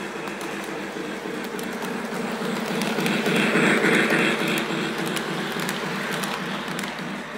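Lionel LionChief Polar Express toy train running along its track, a steady hum and rumble with scattered small clicks. It grows louder, with added hiss, as the locomotive, tender and coach pass close by about three to four seconds in.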